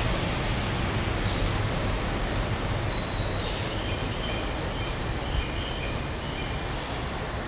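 Steady rushing noise and low rumble of an E5/E6 Shinkansen train receding at high speed, easing off slightly near the end. From about three seconds in there are a few short high chirps.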